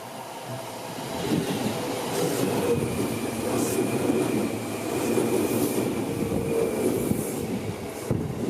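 Seibu Ikebukuro Line electric train passing over a level crossing: the running noise of wheels on rails builds about a second in and carries on loudly until it eases near the end, with a faint steady high whine over the middle and a few sharp clicks near the end.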